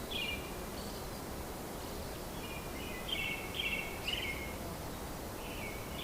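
Birds chirping in short, quick phrases three times, over a steady hiss of background noise.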